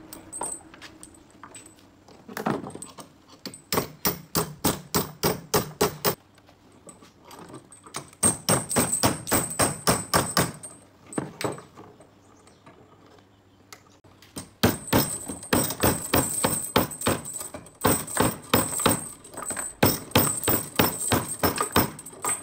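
Hammer tapping in quick runs of sharp strikes, about four or five a second. There are three runs, the last and longest filling the second half.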